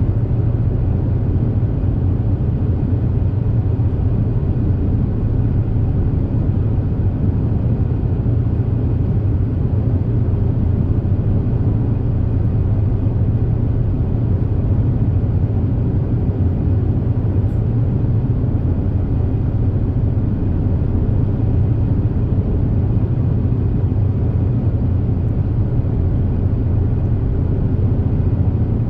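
Steady drone of the Super Jet high-speed passenger boat's engines and hull cutting through the water while cruising, heard on board: a constant deep hum with a rushing noise over it.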